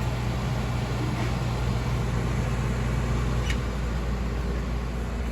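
Air conditioning unit running: a steady low hum over fan noise, the hum dropping out about two-thirds of the way through.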